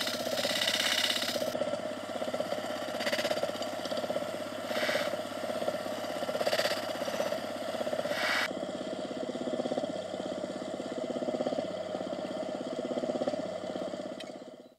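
Electric motor spinning a polishing wheel as steel scale parts are pressed against it. A steady motor hum runs throughout, with a higher hiss in several short spells over the first eight seconds or so where the metal touches the wheel, then just the motor running until it cuts off suddenly.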